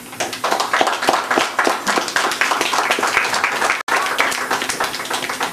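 Audience applauding: many hands clapping at once, with a split-second gap in the sound a little before four seconds in.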